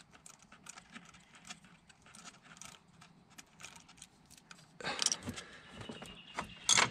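Faint, irregular light metallic clicking as fingers unthread a small bolt from the ignition coil mounting. About five seconds in, a louder rustling clatter starts, with a sharp click near the end.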